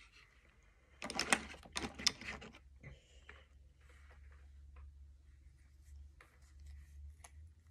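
Makeup items being handled at a table: a burst of rustling and clicking about a second in, then scattered small clicks and taps, over a faint low hum.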